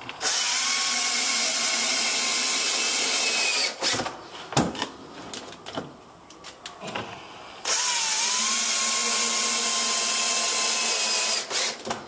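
Cordless drill running at a steady speed in two runs of about three and a half seconds each, with a few clicks and knocks in the pause between.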